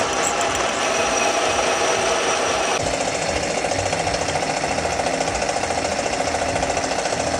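A metal-working machine tool running, machining metal with a fast, even rhythmic chatter; the higher hiss drops away about three seconds in while the motor keeps running.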